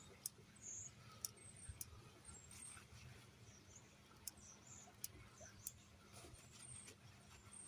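Near silence with faint high bird chirps in the background and a handful of small sharp clicks, spaced about a second apart.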